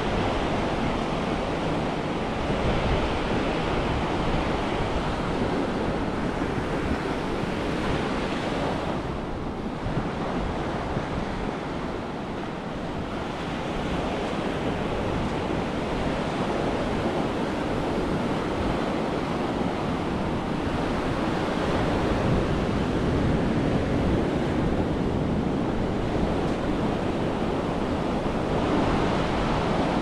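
Small surf breaking and washing up a sandy beach, a steady wash that swells and eases as the waves come in, with wind rumbling on the microphone.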